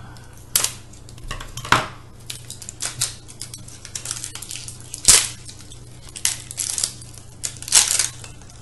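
Scissors cutting open blind-box toy packaging and small plastic containers being handled: irregular sharp clicks, rustles and knocks, with a few louder snaps.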